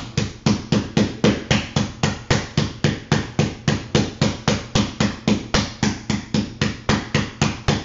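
Wooden meat mallet pounding a prosciutto-topped pork chop inside a plastic bag on a granite countertop, in rapid, even blows of about four or five a second, pressing the prosciutto onto the meat.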